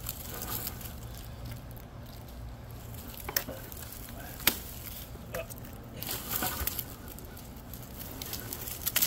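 Rustling and crackling in fallen pine branches as a man moves on the trunk and handles a steel rigging cable, with two sharp clicks about three and a half and four and a half seconds in, over a low steady rumble.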